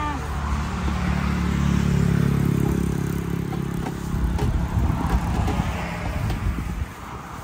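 A motor vehicle's engine passing close by, loudest about two seconds in and fading by about four seconds, followed by a few light clicks or knocks.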